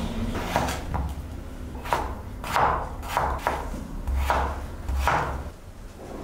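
Chef's knife cutting a raw potato on a wooden cutting board: about eight irregular chops, each the blade slicing through and knocking on the board.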